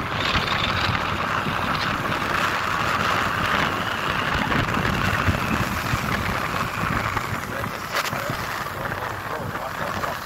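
Wind rushing over the microphone of a moving motorcycle, with engine and road noise underneath, steady, and one sharp click about eight seconds in.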